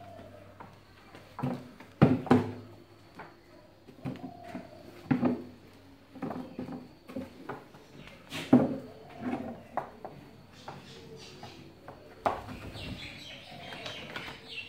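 Irregular knocks and clatters, the loudest about two seconds in and again around eight and a half seconds, with short animal calls, and small birds chirping near the end.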